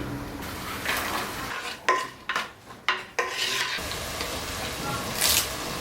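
Food sizzling as it fries in a pan, stirred and scraped with a utensil. The sizzle drops away for about two seconds in the middle, leaving a few sharp clicks, then comes back.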